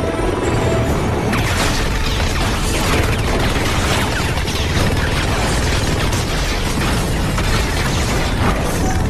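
Action-film battle mix: a continuous din of booms, bangs and impacts, some tagged as explosions, under a music score.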